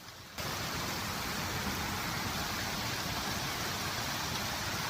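Steady, even rushing noise of water, like heavy rain or flowing floodwater, cutting in about half a second in.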